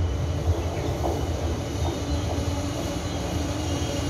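Taiwan Railways electric express train approaching along the platform. A steady low rumble carries a motor whine that grows stronger near the end as the train draws closer.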